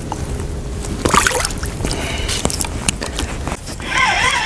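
Water sloshing and splashing as a bream is slipped into a mesh keepnet held in shallow river water. Near the end a wailing tone that rises and falls about twice a second starts up.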